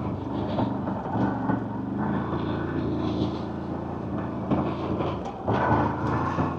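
CFMoto CForce 1000 Overland ATV's V-twin engine running at low speed as the quad crawls over a rocky trail. The note dips briefly about five seconds in, then comes back louder.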